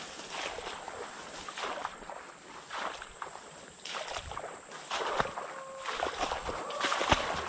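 Footsteps wading through wet swamp grass and mud, stems swishing and brushing in irregular strides that grow louder near the end.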